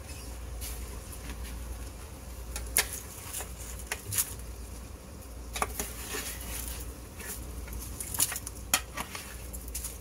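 Metal kitchenware clinking and clattering as a baking sheet of roasted potatoes and Brussels sprouts is handled over the stove, in a handful of sharp clinks, the loudest about three seconds in and near the end. A low steady hum runs underneath.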